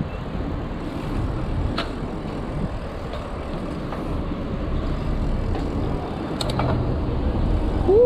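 Wind rushing over the microphone of a handlebar-mounted camera on a moving bicycle, with the tyres rolling on asphalt. There are a couple of faint clicks about two seconds in and again near the end.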